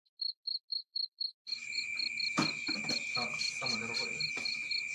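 Insect chirping: short, evenly spaced high chirps, about four a second, alone at first. About a second and a half in, a steady high whine and background noise come in under them, with a sharp click and faint voices.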